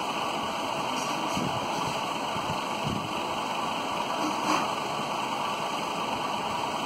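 Steady hiss of background noise. About four and a half seconds in there is one short, soft tick as the fidget spinner is flicked with a finger to set it spinning again.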